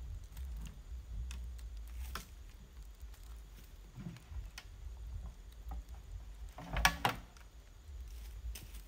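Scattered light knocks and rustles of a plastic water jug being handled among dry leaves, with a louder clatter about seven seconds in, over a steady low rumble.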